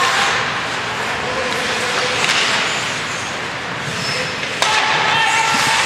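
Ice hockey game in play in an indoor rink: a steady, echoing wash of skating, stick and crowd noise, with one sharp crack about four and a half seconds in, followed by voices calling out.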